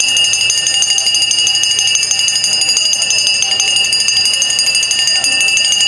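A loud, steady, high-pitched electronic alarm-like tone, pulsing rapidly and evenly without rising or falling.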